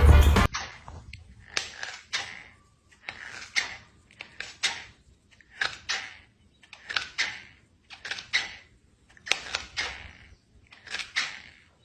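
Music that cuts off about half a second in, then a run of short knocking or scraping noises, about one every second and a half.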